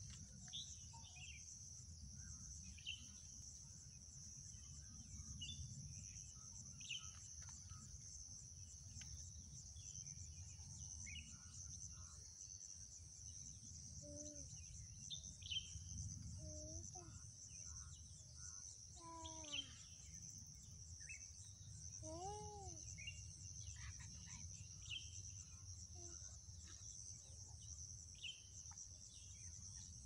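A steady, high, rapidly pulsing insect chorus, with short bird chirps scattered throughout and a few lower, curved bird calls about halfway through, over a low rumble.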